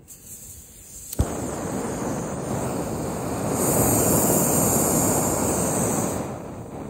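Backpacking gas stove on a Jetboil Jetpower canister: a sharp click about a second in, then the steady rush of gas through the burner. The rush swells in the middle and falls away near the end.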